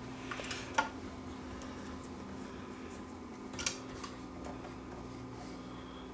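Homemade head demagnetizer, a mains-powered coil, humming steadily while held close to the cassette deck's tape head. Two light clicks come as it knocks against the tape mechanism, one just under a second in and one past the middle.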